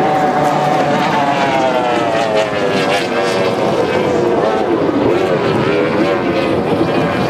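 Formula 2 tunnel-hull race boat's outboard engine running flat out at racing speed, a high engine whine that falls in pitch over the first four seconds as the boat passes, then steadies.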